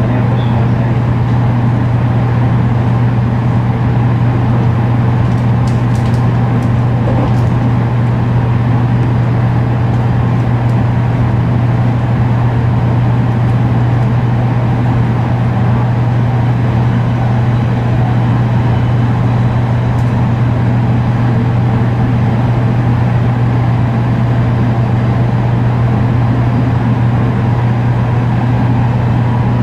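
Running noise of a JR Kyushu 813 series electric train's motor car, with a strong steady low drone and road-and-rail noise that stay even throughout, as when running at a constant speed.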